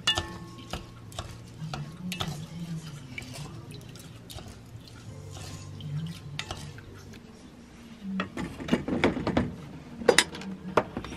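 Wooden spoon stirring konjac rice and brown rice in water in a rice cooker's inner pot, with soft scrapes and clicks. Toward the end there is louder clatter and a sharp knock as the pot is handled and set into the rice cooker.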